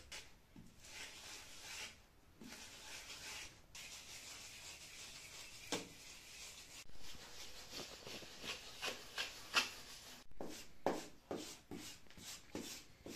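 Wooden float scraping over fresh calfitice render (earth, lime, fibre and a little cement) in repeated strokes, smoothing it flat and spreading the excess into the gaps. The strokes come quicker and sharper in the second half.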